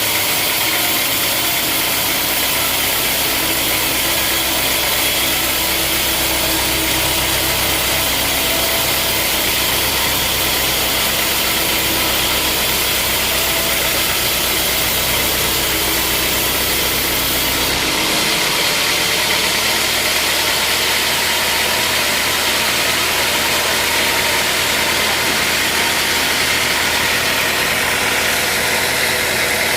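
Sawmill machinery running steadily, an engine-like hum under a high hiss. About two-thirds of the way through the low hum drops away and the sound changes character.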